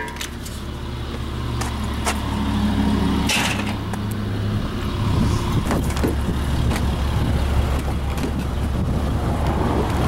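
A steady low rumble under scattered clicks and knocks: a metal gate latch and gate being handled, footsteps, then a car door being opened.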